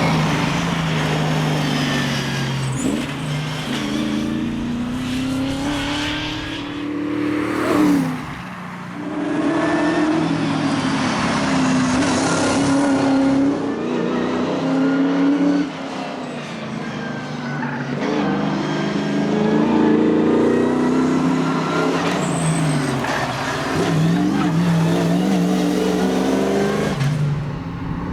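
Holden Torana rally car's engine at full throttle, the note climbing and dropping again and again through gear changes and corners, with brief lifts off the throttle about eight and fifteen seconds in.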